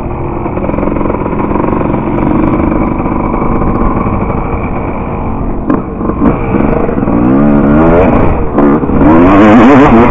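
Dirt bike engine under load, revving hard as the bike accelerates. The pitch climbs in repeated sweeps, drops briefly about six seconds in and again near the end, and is loudest in the final stretch.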